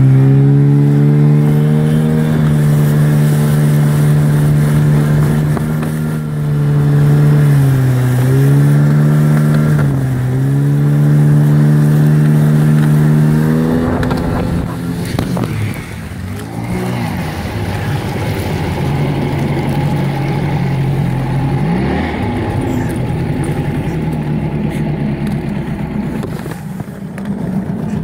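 Golfstream (Parsun) T8 BM two-stroke 8 hp outboard motor driving an inflatable boat at a steady pitch, dipping briefly twice when the throttle is eased. After about 14 s it runs quieter and rougher at lower revs.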